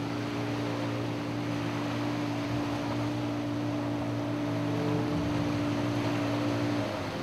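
Outboard motor on an inflatable rubber assault boat running at steady speed, with water rushing along the hull. The engine note shifts slightly near the end.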